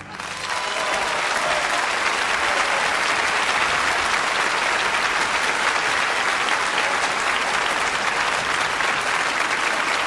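Large concert audience applauding, building over the first second and then holding steady.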